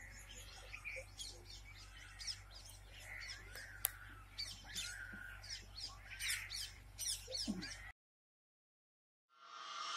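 Faint chirping and calling of birds over a hushed open-air crowd, with a low steady hum underneath. The sound cuts off about eight seconds in, and music fades in near the end.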